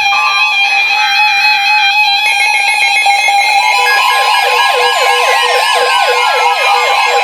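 Several NOAA weather radios sounding their alert alarms together for a tornado warning: overlapping steady electronic beeping tones, joined about four seconds in by a fast rising-and-falling siren-like warble over a steady high tone and a long slow downward glide.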